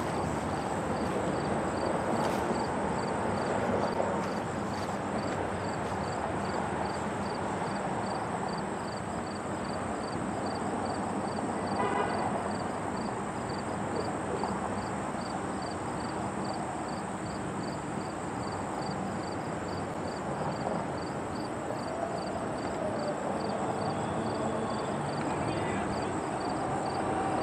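Steady outdoor background rush with a faint, high, even ticking two to three times a second and a brief pitched chirp about halfway through; no train is passing on the empty track.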